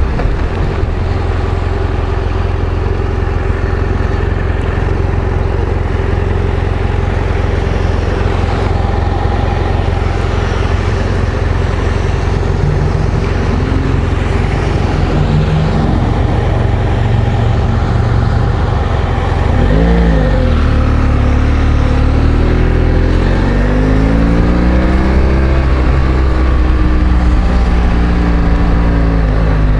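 Motorcycle engine running while riding, under a steady rush of wind and road noise. About two thirds of the way through, the engine pitch dips sharply, then climbs and falls again over several seconds as the bike speeds up and slows.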